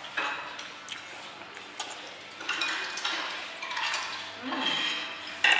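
Metal utensils clinking and scraping against dishes, several short sharp clinks in irregular succession.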